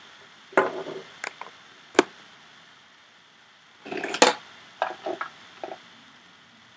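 Handling noise of a DJ controller's cable being plugged in: a scattering of short knocks and clatters, the loudest cluster about four seconds in.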